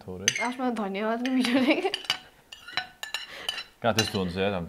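Metal spoons clinking against ceramic plates as food is scooped and eaten, several short sharp clinks, under a woman's talking.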